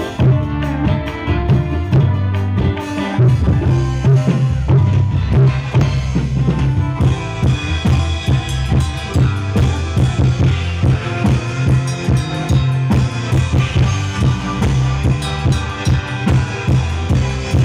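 Live orkes band playing through a large PA sound system: drum kit beating steadily over a strong low bass line, with keyboard and guitars.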